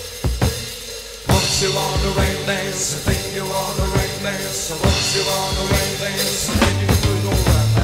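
Instrumental passage of a 1970s rock song: a few drum hits on kick and snare, then about a second and a half in the full band comes back in with drums and bass under a steady beat.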